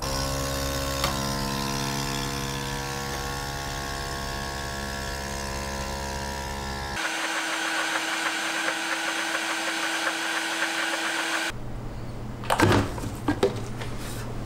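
Vacuum blender motor running steadily as it purées blanched spinach and greens with water. About halfway through it changes to a busier, churning blending sound. Near the end there are a few knocks and clatter as the jug is handled on the base.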